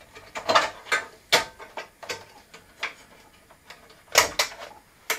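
Irregular clicks and knocks of hands unplugging a cable and handling parts inside an old PC's case, about seven separate knocks with the loudest a little after four seconds in.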